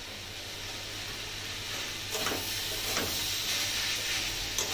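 Banana-flower and potato filling sizzling in oil in an aluminium kadai, with a metal spatula scraping through it a few times from about two seconds in; the sizzle gets louder as it is stirred.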